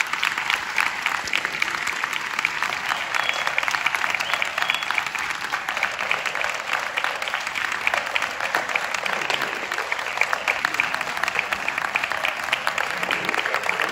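Audience applauding: many hands clapping at once, steady and unbroken.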